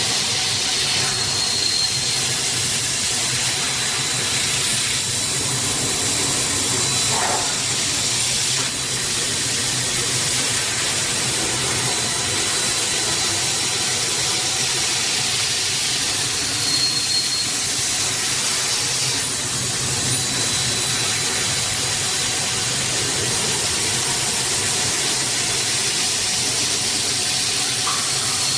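Kotec Newrun 10DX H-beam drilling line running: a steady machine hiss over a low hum, with a thin high whine that swells briefly a few times.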